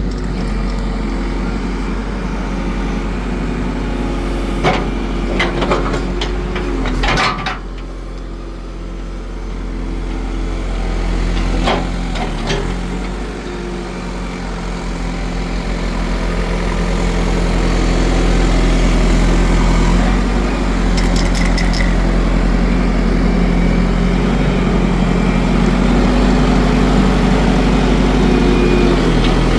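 JCB 3CX backhoe loader's diesel engine running, with a few sharp knocks or clanks about five to seven seconds in and again near twelve seconds. The engine grows louder about halfway through and stays up.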